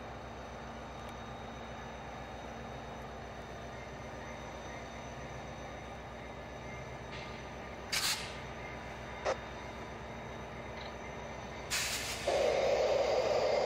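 VIA Rail F40PH-2 diesel locomotive and its passenger cars rolling slowly past, a steady low rumble. Short bursts of hiss come about eight seconds in and again near the end, and a louder rushing noise takes over for the last second or so.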